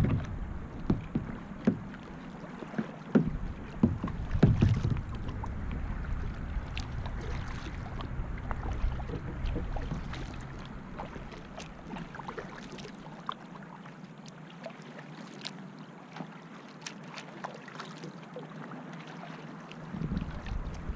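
Kayak paddling on a river: the paddle dips in with small splashes and drips, and light knocks come irregularly over the steady wash of water. A low wind rumble on the microphone fades out about two-thirds of the way through.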